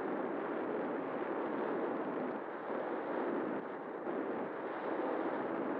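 Steady rushing wind noise from air flowing over the onboard camera's microphone on an RC glider in flight.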